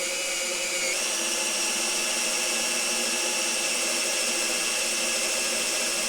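Electric drill running with a small 4–5 mm bit, boring through a steel barrel hoop just into the oak stave beneath to make a pilot hole for a screw. It gives a steady whine that steps up slightly in pitch about a second in.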